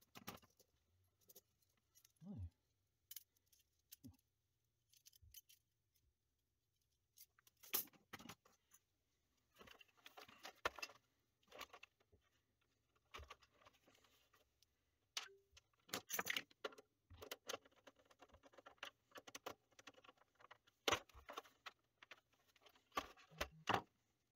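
Scattered clicks, taps and short scrapes of a Commodore 64's plastic case being handled, turned over and screwed shut, with a few sharper knocks. The sounds come irregularly and grow busier after the first few seconds.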